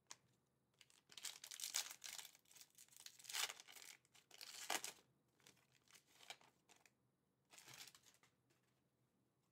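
Foil wrapper of an Upper Deck Fleer Ultra Marvel Midnight Suns trading card pack being torn open and crinkled, crackling in irregular bursts for about four seconds, then crinkling again more briefly near the end as the cards come out.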